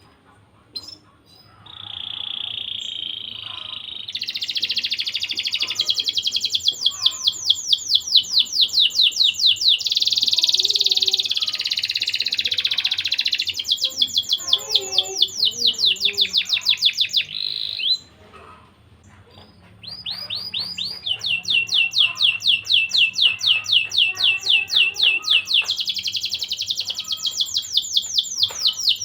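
Domestic canary singing in long, rapid trills of high repeated notes, with a short pause about two-thirds of the way through before the trilling resumes.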